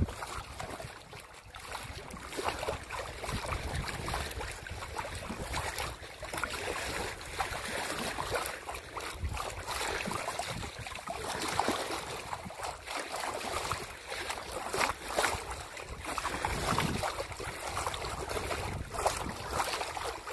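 Water rushing and splashing along a sailboat's hull as it moves under way, a steady rough wash with uneven surges, with wind gusting on the microphone.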